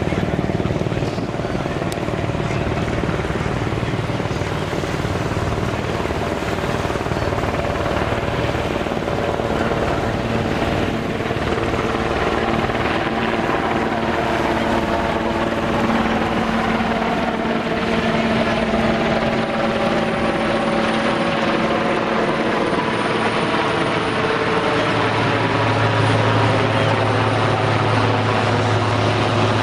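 Super Puma helicopter flying past at low altitude, a steady rotor and turbine sound. It grows a little louder toward the end, with its engine tones gliding in pitch as it passes close.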